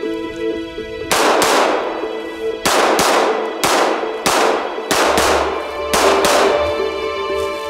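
Glock 19 9mm pistol firing a string of about a dozen shots at an uneven pace, each crack trailing off in a short echo, over background music.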